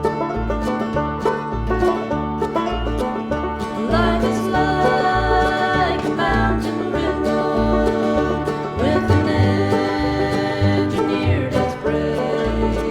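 Bluegrass-style country music: plucked strings over a steady alternating bass, with a sliding melody line coming in about four seconds in.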